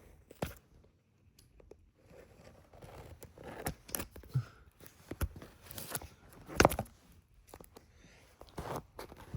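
Plastic shrink-wrap on a sealed iPhone 6 box crinkling and tearing as it is picked at and peeled off, in irregular crackles, scrapes and clicks. The sharpest click comes about two-thirds of the way through.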